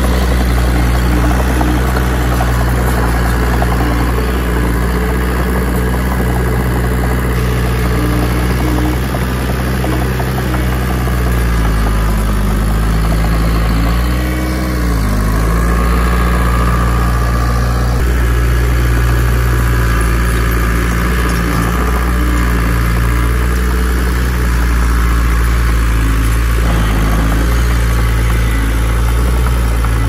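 Heavy diesel engine of earthmoving machinery running steadily at a low, even pitch. About halfway through its note sags briefly, as under load, then recovers.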